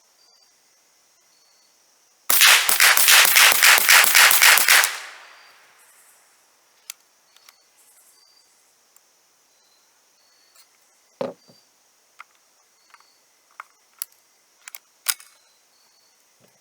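.22 rimfire semi-automatic rifle fired rapidly: about ten shots in quick succession, some four a second, with a ringing tail. Scattered light clicks and a dull thump follow.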